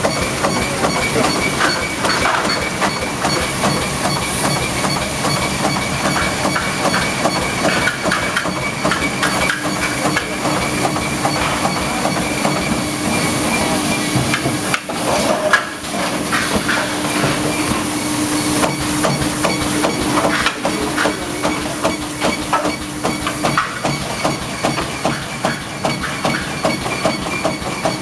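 Loud, steady factory-floor machinery noise from radiator seam welding machines: dense crackling and hiss under a steady high whine, with a lower hum from about nine seconds in to about twenty-three seconds in.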